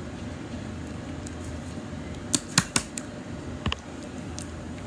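Small sharp clicks and taps from handling objects over a steady low room hum: three quick clicks about two and a half seconds in, then two more about a second later.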